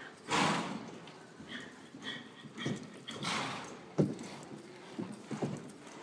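Hooves of a loping horse thudding dully in soft arena dirt. Two loud hissing bursts come about three seconds apart, the first the loudest sound. A brief high whine falls between them.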